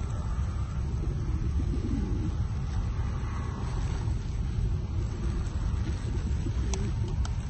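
Steady low outdoor rumble, with a couple of faint sharp clicks near the end.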